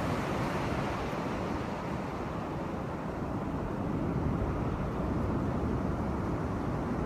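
Steady rushing outdoor noise of wind on a phone's microphone, mixed with surf breaking on a beach, heaviest low down.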